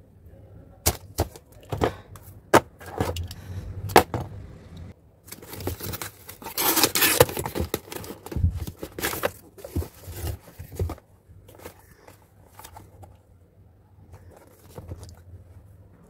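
Hands opening a cardboard box and handling its packaging: sharp clicks and knocks of cardboard in the first few seconds, a stretch of rustling and scraping in the middle, then a few taps and quieter handling.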